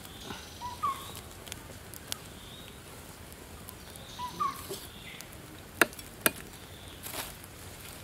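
Wood fire crackling with scattered sharp pops, two loud ones a half-second apart just before the six-second mark. A short two-note animal call, a low note then a higher one, repeats about every three and a half seconds.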